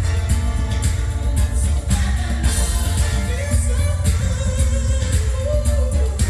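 Pop song with a singing voice, heavy bass and a steady beat, played through a hi-fi amplifier and loudspeakers as a working test.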